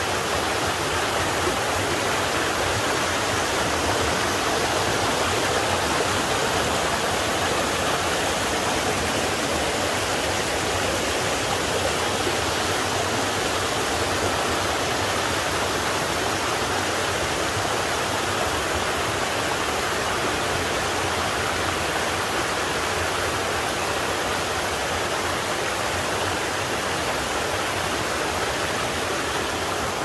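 Shallow rocky forest stream running over boulders in small riffles: a steady, even rush of flowing water.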